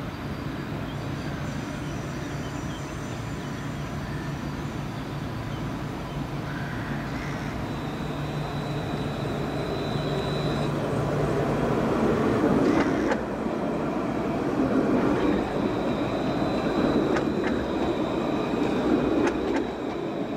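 Low-floor electric tram approaching and passing close by: a rising rumble of steel wheels on rail, loudest about halfway through, with a thin high whine heard twice and a few sharp clicks in the second half.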